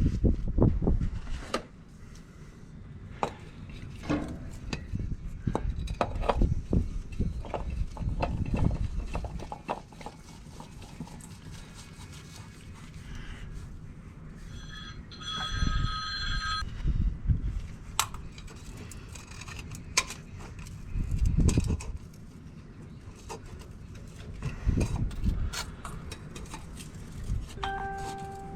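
Hands-on work during an engine oil change on an old Fiat-Allis bulldozer: irregular knocks, clanks and low rumbling thumps, with a brief ringing tone about halfway through.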